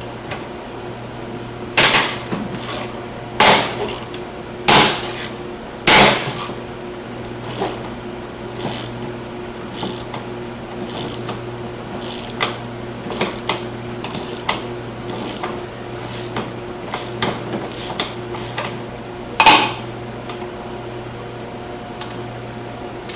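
Irregular metallic knocks and clanks of hand tools striking and handling metal parts during snowmobile disassembly, a handful of loud hits among many lighter taps and clicks, over a steady low hum.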